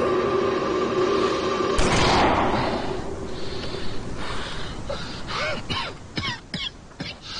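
A single revolver shot about two seconds in, ringing out and fading over about a second over held music notes. From about five seconds in, a man's short breaths and moans come several times, each rising and falling in pitch.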